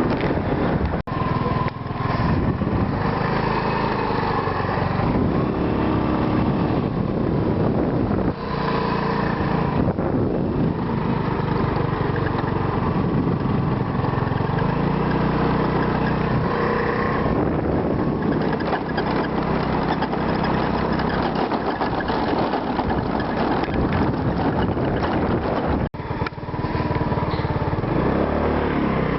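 A motor vehicle's engine running continuously, its pitch slowly rising and falling, with two brief breaks, about a second in and near the end.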